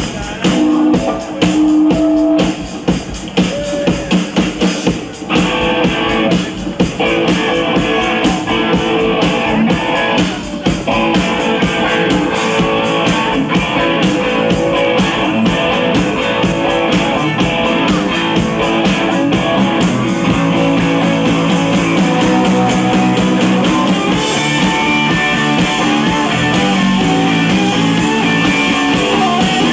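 Rock band playing live with electric guitars, bass and drum kit, instrumental with no singing; the full band fills in about five seconds in.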